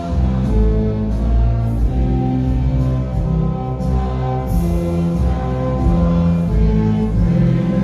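Music with a steady, sustained bass and held notes, with some singing.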